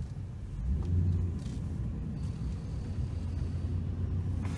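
Steady low engine rumble heard from inside a vehicle cabin, a little louder about a second in.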